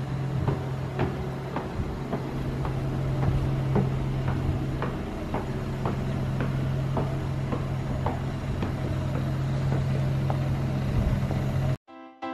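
Footsteps climbing wooden stairs, about two steps a second, over a steady low hum. Near the end they cut off abruptly and music starts.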